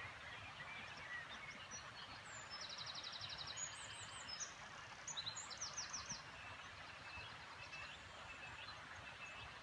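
Songbirds singing over a faint steady hiss of outdoor background noise, with a rapid high trill about two and a half seconds in and another quick run of notes around five to six seconds in.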